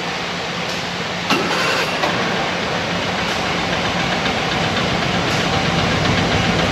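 Old stationary farm pump engine running steadily, with a sharp knock about a second in.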